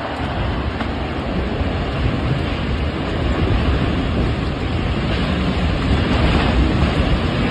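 Tornado wind buffeting the microphone: a loud, steady rush with a heavy low rumble, growing gradually louder.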